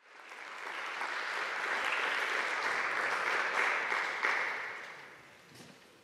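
Audience applause, rising quickly at the start and dying away about five seconds in, as the performers settle before playing.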